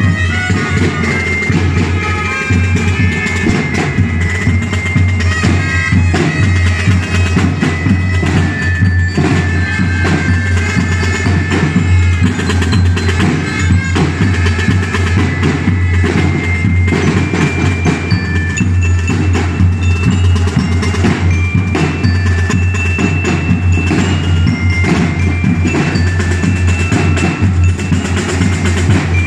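A street drum and bugle corps playing: bugles hold sustained notes over drums, with bell-like mallet percussion ringing through, at a steady loudness.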